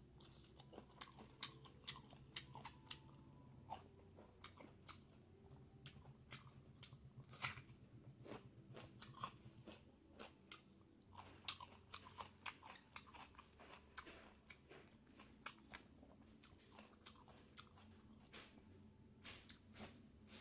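Close-miked mouth sounds of someone eating pork and bamboo shoot curry: chewing and biting with many small sharp wet clicks and smacks, and one louder crunch about seven and a half seconds in.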